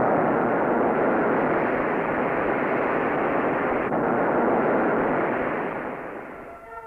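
Solid-propellant rocket motor firing while spinning on a test rig, a steady rushing noise. It fades away near the end as the motor burns out.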